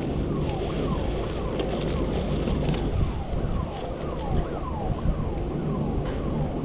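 Shipyard warning alarm sounding a short falling tone over and over, about two a second, over a steady low hum; the alarm apparently warns of a crane moving.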